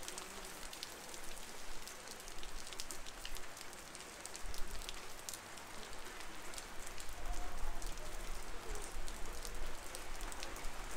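Heavy rain pouring down, with many sharp individual drop ticks close by. A low rumble comes up about halfway through.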